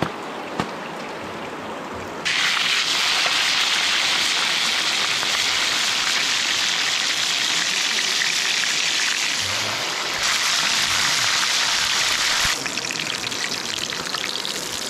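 Fish frying in hot oil in a pan: a loud, steady sizzle that starts abruptly about two seconds in. Before it, running river water with two sharp knocks.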